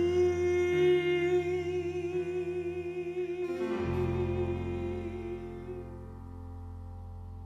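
A male musical-theatre singer holds a long closing note with vibrato over sustained instrumental accompaniment. About four seconds in the accompaniment changes chord, the voice dies away, and the music fades out as the song ends.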